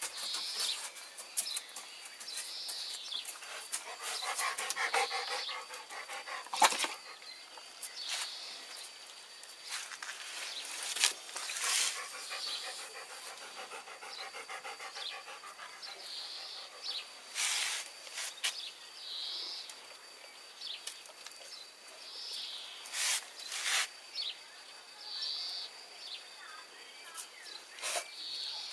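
A dog and a cat at close quarters: short breathy sounds every two or three seconds, a brief pitched call about four seconds in, and scattered sharp clicks and knocks.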